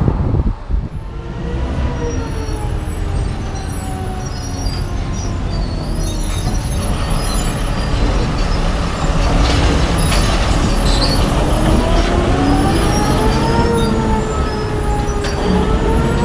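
Large open-pit mining haul truck driving past close by: a loud, heavy rumble with a whine that rises and falls in pitch as it moves.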